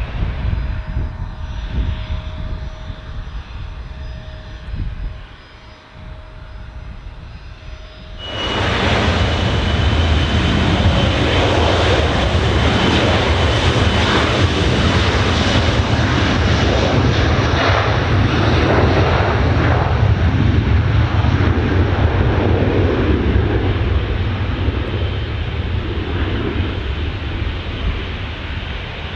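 Jet airliner's engines at takeoff power, rising suddenly to a loud, steady noise about eight seconds in, with a high whine riding on top. Before that there is only a low rumble and wind on the microphone.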